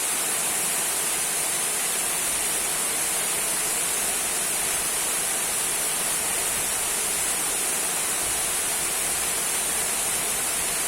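Small waterfall trickling and splashing in a steady, even hiss that sits high and bright.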